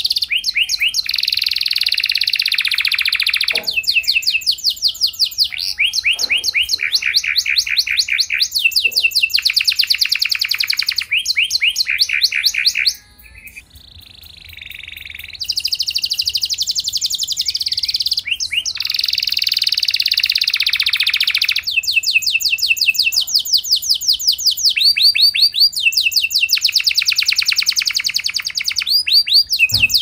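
Domestic canary singing: a long string of very fast, rapid-fire trills, one rolled phrase after another with only a brief quieter dip about halfway through.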